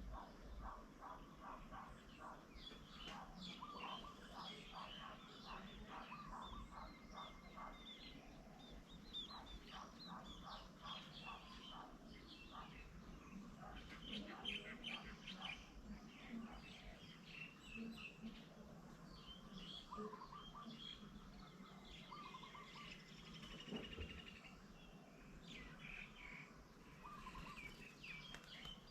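Faint chorus of several small birds chirping and calling, with a quick run of repeated notes through the first several seconds and scattered short calls after.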